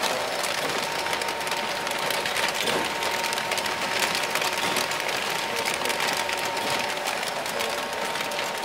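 Horizontal flow-wrapping machine running as it wraps square bread rolls in paper film: a steady mechanical hum with a constant mid-pitched tone, over a dense crackling rustle.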